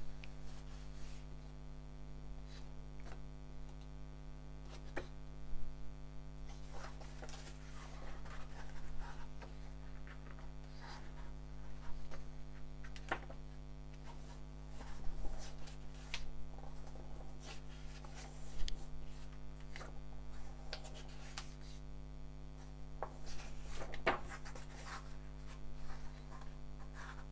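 Pages of a printed comic book turned by hand, with scattered papery rustles and flicks every second or two over a steady electrical hum.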